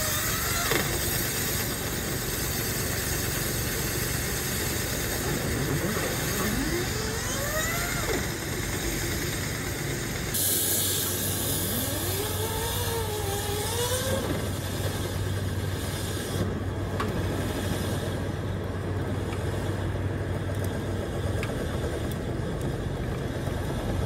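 Dryer vent cleaning equipment running in an exterior dryer vent: a steady rushing machine noise with a low hum, and a whine that rises and falls in pitch as lint blows out of the vent. The sound changes abruptly about ten seconds in.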